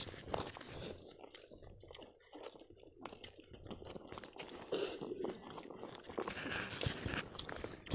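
Faint sounds of a group eating with their hands from plates: small rustles and clicks of food being picked up, with chewing.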